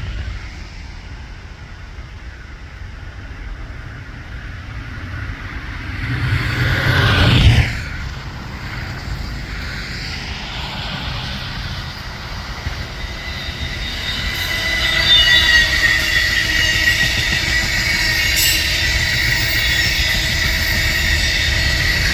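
Passenger train cars rolling through a curve. From about fourteen seconds in, the wheel flanges squeal steadily at a high pitch and grow louder.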